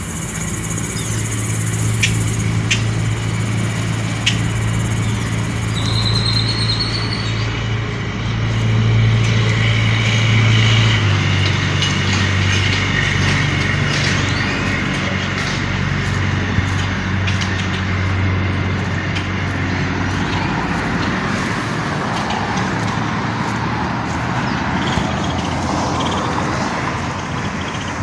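A motor vehicle engine running close by, a steady low hum that changes pitch about eleven seconds in.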